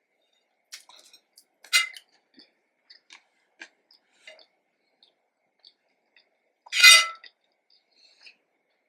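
Eating sounds, mostly quiet: chewing batuk and aloo ko achar with scattered small clicks. There is a sharper click a little under two seconds in and a much louder clink about seven seconds in.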